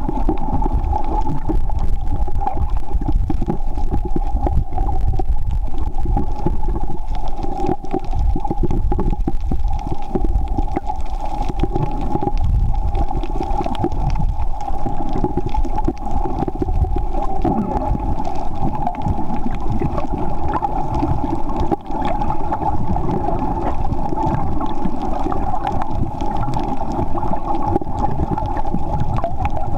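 Underwater ambient noise picked up by a camera held below the surface: a steady muffled rush with a low rumble, a constant hum-like band in the middle, and light crackling throughout.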